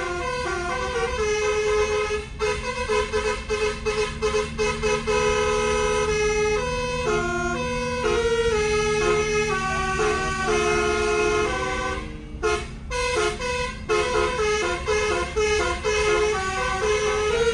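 Bus basuri telolet air horns, a roof-mounted set of twelve trumpets, playing a tune of stepped notes with runs of short clipped notes and a short break about twelve seconds in.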